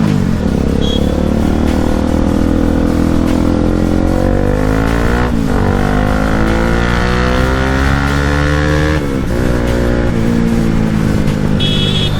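Bajaj Pulsar NS200's single-cylinder engine pulling up through the gears: the pitch climbs steadily, drops sharply with an upshift about five seconds in and again about nine seconds in, then sinks slowly as the bike eases off.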